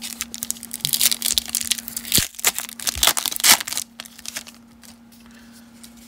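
Baseball card pack wrapper being torn open and crinkled: a run of crackling, rustling tears over about the first four seconds, then quieter handling. A steady low hum runs underneath.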